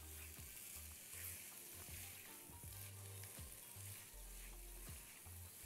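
Faint sizzle of diced carrots, green onion and bell peppers sautéing in butter in a frying pan, stirred with a silicone spatula.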